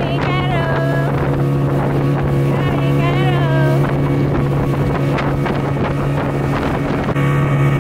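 Speedboat engine running at a steady drone under way, with wind buffeting the microphone and water rushing and splashing past the hull.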